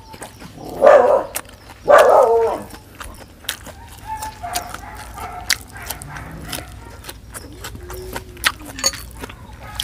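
A dog barks twice, about a second apart, near the start. Then come quieter, scattered small clicks and smacks of close-up chewing.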